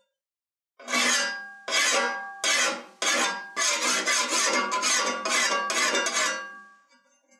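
Hand file rasping across the edge of an old hand-forged iron cleaver blade clamped in a vise. It starts about a second in with four slower strokes, then runs into quicker strokes at about three a second, and stops shortly before the end.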